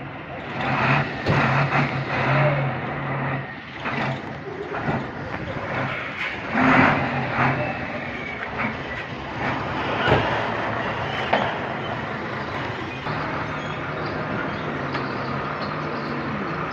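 Heavy truck engine running at a steady idle, with irregular sharp metal knocks and clanks from work on the truck.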